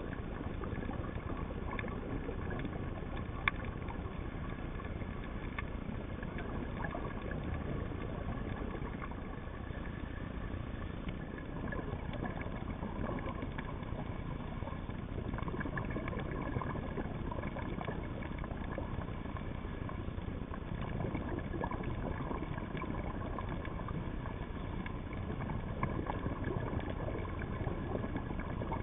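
Underwater sound picked up by a diver's camera: a steady low rumble and hiss with a few faint steady tones, scattered with sharp clicks.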